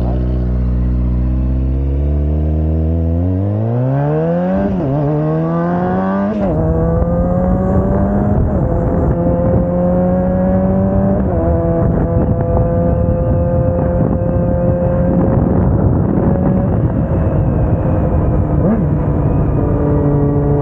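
Kawasaki sport motorcycle engine and exhaust, heard onboard, pulling away from low revs and accelerating through the gears. There are quick upshifts at about 4.5 s, 6.5 s and 11 s, where the revs drop each time. After that it settles to a steady cruise with wind rush.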